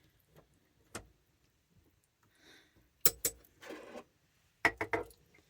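A few sharp clicks and clinks of small kitchen utensils being handled: one about a second in, then a cluster about three seconds in and another near the end, with quiet between.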